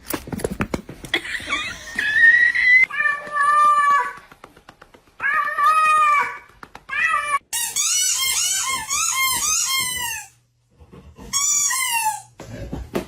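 Cat meowing: a string of separate high meows, then a quick run of short rising-and-falling calls, and one more meow near the end. A few knocks come at the very start.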